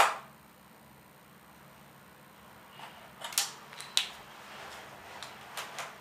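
A sharp knock right at the start, then light clicks and rustles of wires and plastic parts being handled on a whiteboard from about halfway through.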